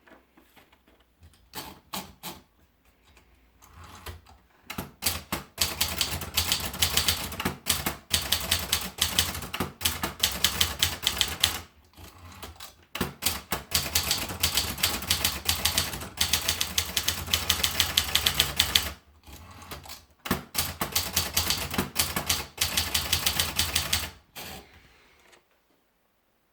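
Triumph Contessa De Luxe manual portable typewriter being typed on: fast runs of key strikes clacking in a steady stream, broken by a few short pauses, stopping shortly before the end.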